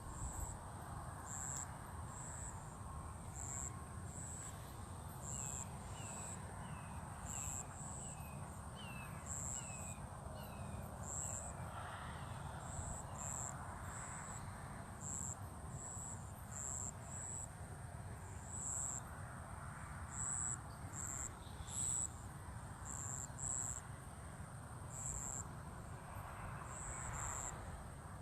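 Dawn chorus of night insects: a steady high cricket trill with short, irregular chirps layered over it throughout. A bird gives a run of about a dozen quick repeated notes around the middle, over a low steady rumble in the background.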